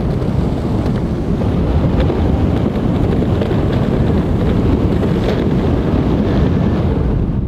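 Skateboard wheels rolling steadily over a concrete path, with wind buffeting the microphone.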